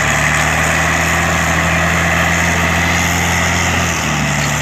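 Diesel engine of a Randon RK 430B dump truck running steadily while its bed tips up to dump a load of earth. The engine note shifts slightly about four seconds in.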